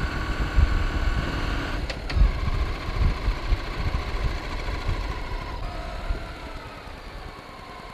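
Honda Shadow 750's V-twin engine running as the motorcycle rides along, with wind rumble on the microphone. The engine note drops a little past halfway, and the sound grows quieter toward the end.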